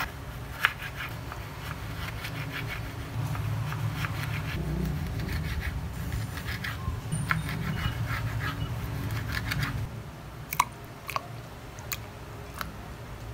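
Kitchen knife slicing a lemon on a bamboo cutting board: repeated crunchy cuts and taps of the blade on the wood, over a low steady hum. In the last few seconds there are a few sharp, separate clicks as the slices go into a glass carafe.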